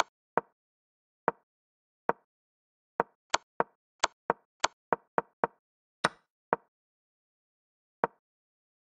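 Chess program's piece-move sound effects: short wooden clicks, one for each move. A few come slowly, then a quick run of several a second in the middle, then a single one near the end.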